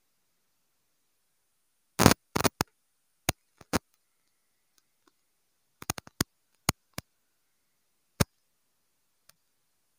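About a dozen sharp, very short clicks at irregular times, some in quick clusters, over otherwise dead silence.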